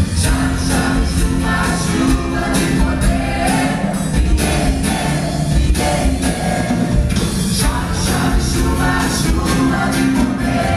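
Christian worship music with singing over a band, with a steady drum beat.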